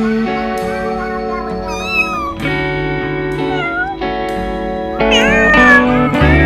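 A few short kitten meows, each a wavering rise and fall in pitch, over background music of held chords.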